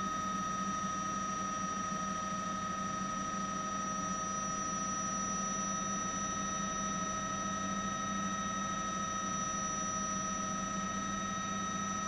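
Steady helicopter drone heard over the aerial camera feed: a constant high turbine whine made of several fixed tones, over a low hum and an even hiss.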